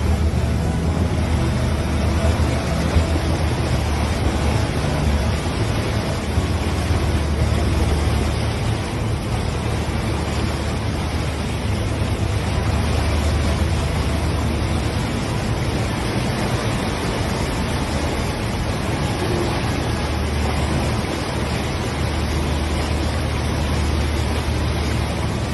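Batobus river shuttle boat under way: a steady low engine drone beneath the rush of churning propeller wash close behind the stern.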